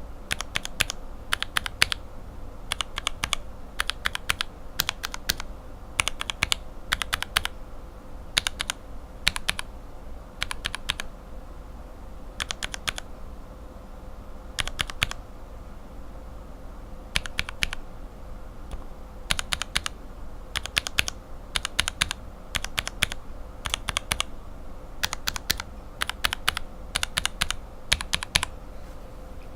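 Lubed linear mechanical keyboard switches (Cherry retooled bottom housings with Revo White stems and springs, lubed with Tribosys 3204) being typed on. The keystrokes come in quick clusters with short pauses between them.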